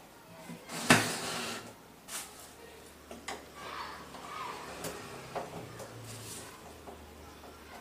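Handling noise from the plastic cabinet of a CRT television being moved and turned on a workbench for disassembly: a sharp knock about a second in, then lighter clicks and rustles.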